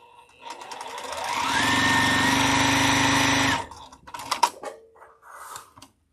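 Electric sewing machine stitching a seam: the motor speeds up with a rising whine over about a second, runs steadily at speed with a rapid, even stitch rhythm, then stops abruptly about three and a half seconds in. A few sharp clicks and knocks follow.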